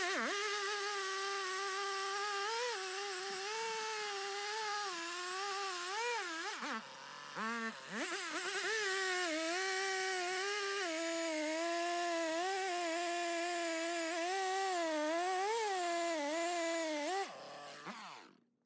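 Stihl 066 two-stroke chainsaw running at full throttle and cutting through a large red oak log, its pitch dipping and recovering as the chain bogs under load. It eases off briefly about seven seconds in, then cuts again and winds down near the end.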